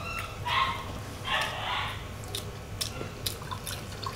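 A dog barking twice in the first second and a half, then a few light clicks.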